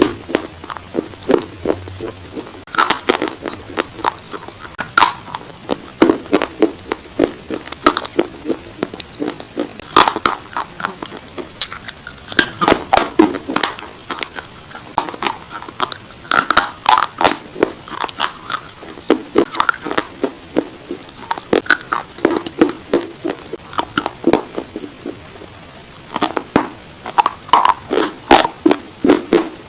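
Pieces of dry baked clay pot being bitten and chewed close to the microphone: rapid, crisp crunches and cracks that come in quick runs, with a short pause near the end.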